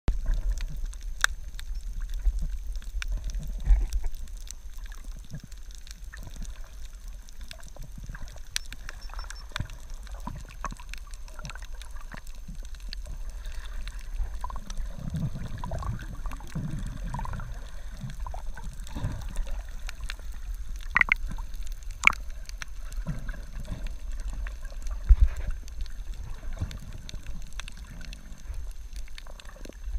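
Underwater sound picked up by a camera held beneath the surface: a steady, muffled low rumble of moving water with many scattered sharp clicks and crackles. There are swishing surges of water through the middle and a few louder knocks past the middle.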